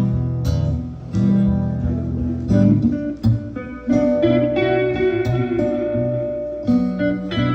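Instrumental break of a song: guitar playing strummed chords over bass notes, with one higher note held for a couple of seconds in the middle.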